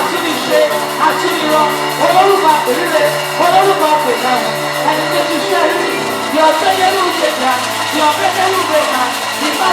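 Live praise band music with voices singing over held low notes.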